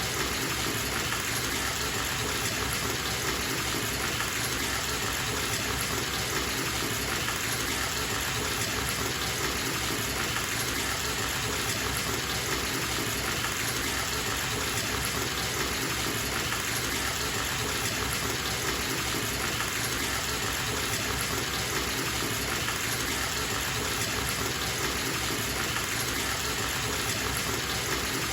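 Water running from a bathtub tap into the tub, a steady even rush of water that does not change.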